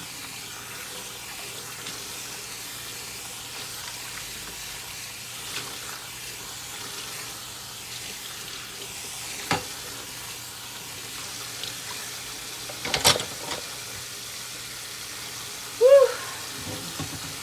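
Tap water running steadily into a kitchen sink during hand dishwashing, with a sharp clink about halfway and a few more clinks of dishes a little later. Near the end there is a brief pitched sound, the loudest moment.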